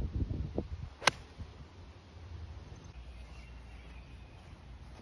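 A golf iron striking the ball on an approach shot: one sharp click about a second in. After it there is only a faint, steady, low background noise.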